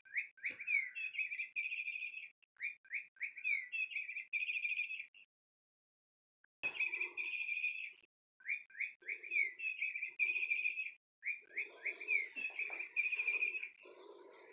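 SmartyKat Chickadee Chirp cat toy playing its recorded chickadee chirps as the cat handles it, five times with short pauses. Each burst is a few sweeping chirps running into a fast trill. Soft rustling sounds under the later bursts.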